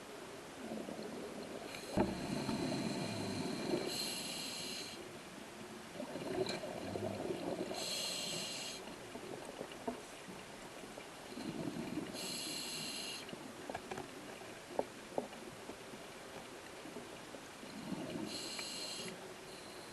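Scuba diver breathing through a regulator underwater: four breath cycles, each a low bubbling rumble joined by a short high hiss from the regulator. A few small clicks come in between.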